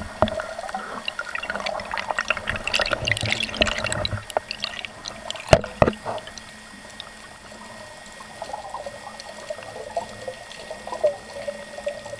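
Underwater water noise and bubbling picked up by a camera on a speargun, with a burst of dense crackling clicks over the first few seconds and two sharp knocks about five and a half seconds in.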